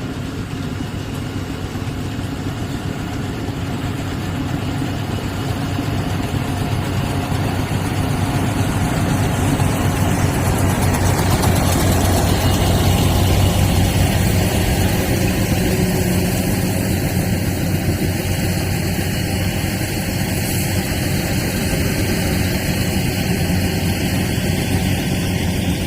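Rice combine harvester engine and machinery running steadily with a deep hum, growing louder toward the middle and easing a little afterwards.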